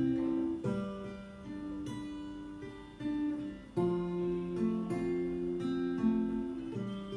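Acoustic guitar playing an instrumental passage, with chords struck and left ringing and the chord changing every second or so.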